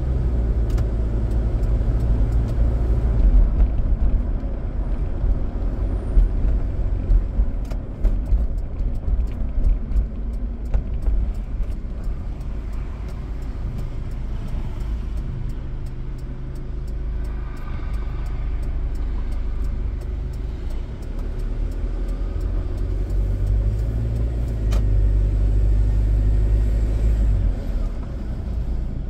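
Car driving on city roads: a steady low rumble of engine and tyre noise, its pitch shifting slightly as the car changes speed.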